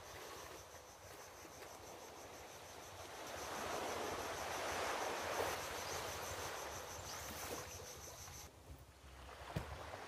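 Seaside outdoor ambience: a steady rushing of surf and wind that swells in the middle and drops near the end. A faint high pulsing trill runs through it, and one sharp knock comes near the end.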